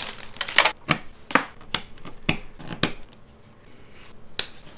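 Handling a SATA cable and its plastic wrapping in an open desktop case: a quick rustle, then a run of sharp plastic clicks and taps as the cable is worked in, with a louder click near the end.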